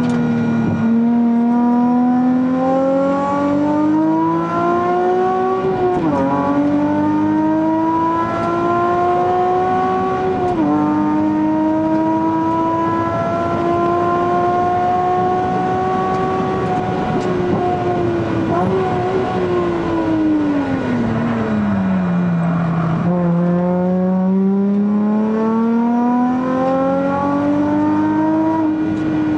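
Nissan Fairlady Z's V6 engine heard from inside the cabin at racing pace. The revs climb through the gears, with two upshifts about 6 and 10 seconds in, then stay high. From about 19 seconds the pitch sinks as the car slows, and a few seconds later it climbs again as the car accelerates.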